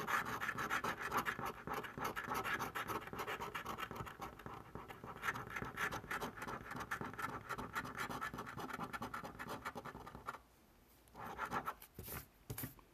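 A coin scraping the latex coating off a scratch-off lottery ticket in rapid back-and-forth strokes. The scraping stops after about ten seconds, and a few short scrapes follow near the end.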